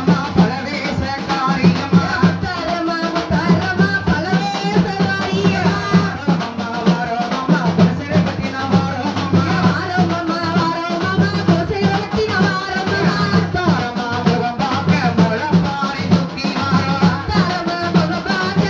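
Tamil kummi folk song: a lead voice singing a mulaippari kummi with steady rhythmic hand-clapping from the dancers and percussion, over a steady low drone.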